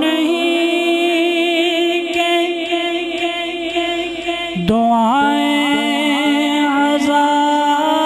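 Unaccompanied singing of a Punjabi naat: one voice holds a long, wavering, ornamented note, breaks off with a click about halfway through, then holds another, slightly lower note with slides between pitches.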